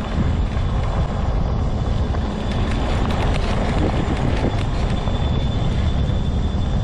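Homemade all-wheel-drive off-road mobility scooter rolling steadily along a trail: a continuous low rumble of wheels, with a thin steady high whine over it and scattered light ticks.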